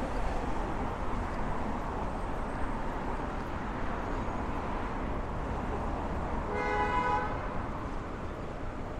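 City street traffic noise with a single short car horn toot about two-thirds of the way through.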